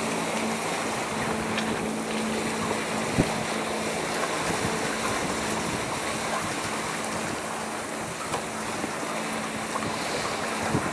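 Wind and water rushing around a sailboat under way, with a steady low boat-engine hum underneath and one sharp knock about three seconds in.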